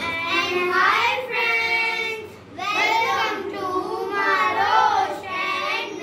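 Several children singing a song together, with a brief pause about two and a half seconds in.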